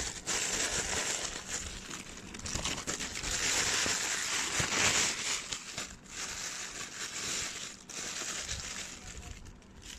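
Clear plastic bag crinkling and rustling as hands unwrap a VR headset from it, with brief lulls about six and eight seconds in.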